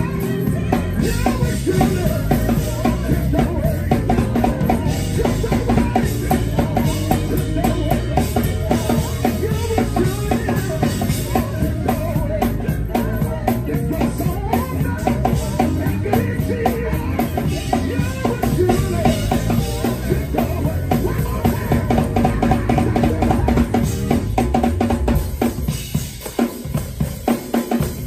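A drum kit played fast and hard: a dense run of bass drum, snare and rimshot hits with cymbals. Near the end it thins out to separate, punchy hits.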